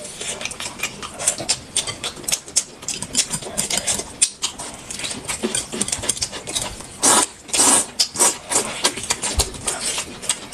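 People eating close to the microphone: irregular wet chewing clicks and mouth smacks, with two louder bursts a little past halfway.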